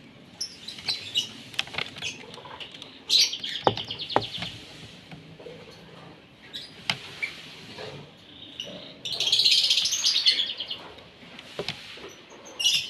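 Asian pied starling (jalak suren) chattering and calling in bursts, with a short loud outburst about three seconds in and a longer, louder one near the end, and a few sharp clicks between the bursts.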